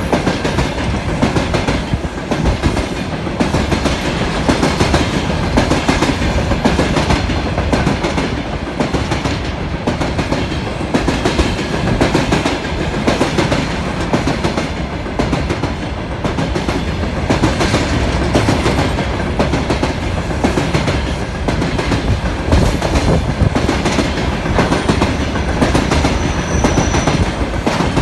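Freight train rolling past, its wagon wheels clacking over the rail joints in a steady, continuous clatter.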